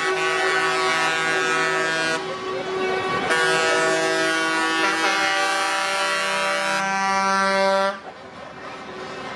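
Lorry air horns blasting as a truck convoy passes, several horns of different pitches sounding together in long held blasts. They break off about two seconds in, start again a second later and stop near the end.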